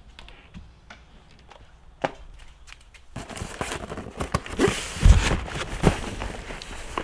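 Cardboard shipping box being picked up and handled, its flaps scraping and rustling, with a few light knocks early on and two heavy thuds about five and six seconds in.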